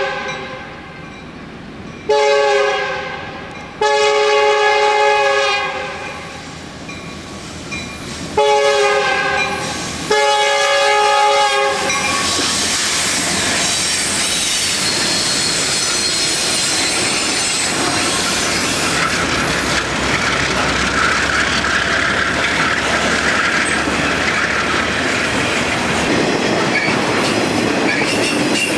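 A Santa Fe diesel locomotive's air horn sounds four chord blasts for the crossing over the first dozen seconds. Then a long intermodal train of trailers on flatcars rolls past close by: steady wheel and rail noise with clickety-clack and some high wheel squeal.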